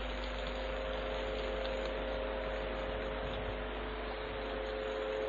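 Steady electrical hum with a constant hiss.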